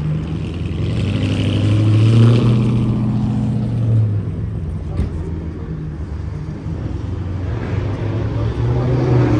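Exhaust of a Dodge Charger Hellcat's supercharged V8, run catless with the mid-mufflers deleted. The engine note climbs over the first two seconds, eases back, and climbs again near the end, with a sharp click about five seconds in.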